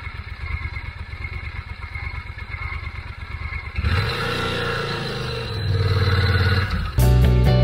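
Motorcycle engine idling with a steady low throb, then from about four seconds in a louder engine note with shifting pitch as a bike moves. Music starts abruptly near the end.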